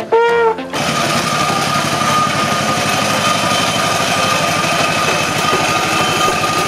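A short blast on a brass signal horn, then, about a second in, the engine of a vintage wheeled motor fire pump running steadily with a fast even beat and a thin whine.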